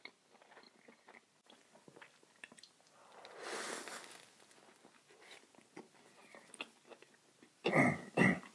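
Close-miked chewing of a vegan sandwich, with many small wet mouth clicks. There is a brief rush of noise about three and a half seconds in, and two louder short mouth sounds near the end.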